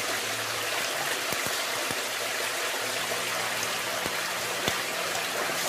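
Steady rush of running stream water, with a few light knocks.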